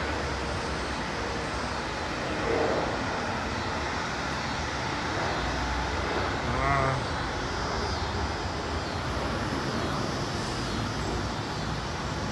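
Steady airport background roar of distant jet aircraft engines and road traffic, with two brief voice-like sounds about two and a half and seven seconds in.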